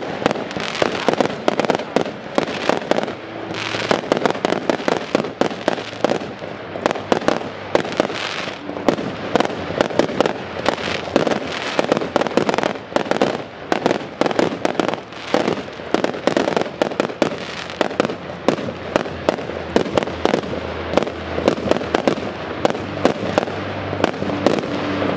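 Aerial firework shells bursting in rapid succession, a dense string of sharp bangs several a second.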